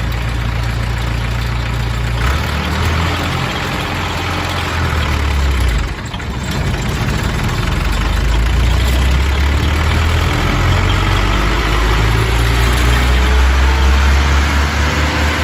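Bandit Model 250 XD wood chipper's engine running steadily just after starting. It dips briefly about six seconds in, then runs louder, with a slowly rising whine through the second half.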